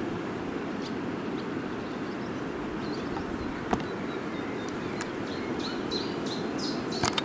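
Outdoor ambience: a steady low rumble of background noise, with small birds chirping in short calls through the second half. A sharp click comes a little past halfway and a couple more near the end.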